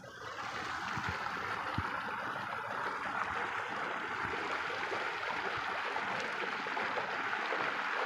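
A small cascade of stream water pouring over rocks: a steady, close splashing rush that swells up within the first half-second.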